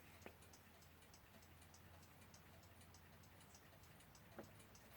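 Near silence with the faint, quick, steady ticking of a mechanical clock, and two soft clicks, one just after the start and one near the end.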